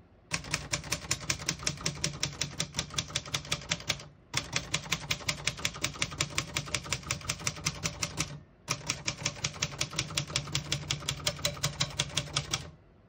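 Keys of a 1965 Singer Scholastic manual portable typewriter typed at a steady pace, the typebars striking the platen about six or seven times a second. The typing comes in three runs, broken by two short pauses.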